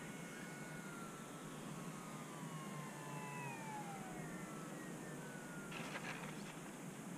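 A faint motor whine of several tones together, held steady and then gliding slowly down in pitch over a few seconds, with a brief rustle near the end.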